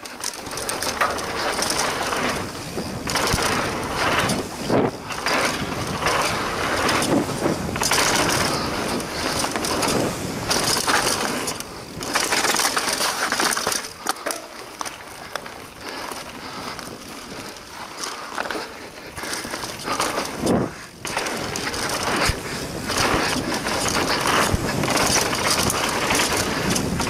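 Mondraker Foxy Carbon RR 29 mountain bike riding fast down a dirt trail: knobby tyres crunching and rolling over dirt and loose gravel, a continuous rushing noise that surges and dips with speed and bumps.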